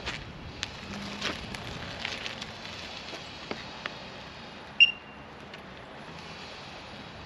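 Scattered light clicks and knocks of a rider stepping onto a Veteran Sherman S electric unicycle and shifting his weight on its pedals and leg pads. About halfway through comes one sharp click with a brief high ring.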